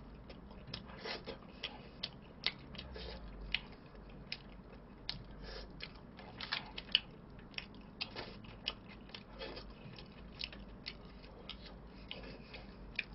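Faint, irregular clicks and crackles of a man eating pizza: chewing and mouth sounds, with his hands picking at slices in a cardboard pizza box.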